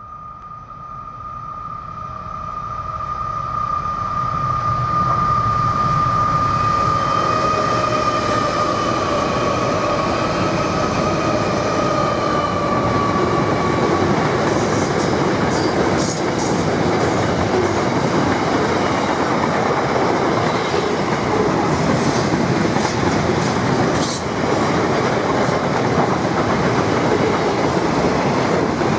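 A freight train hauled by four NR class diesel-electric locomotives approaches and passes, its sound building over the first few seconds, with a high whine that fades out about halfway through. Loaded steel-coil flat wagons then roll by steadily, their wheels clicking and clunking over the rail joints.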